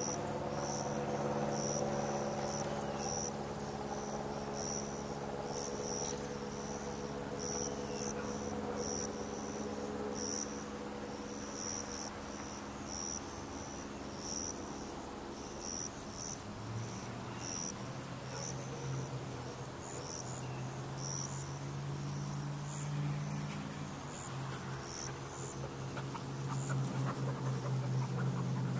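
An insect, cricket-like, chirping in short high-pitched pulses repeating one or two times a second. Under it runs a steady low hum that grows stronger in the second half.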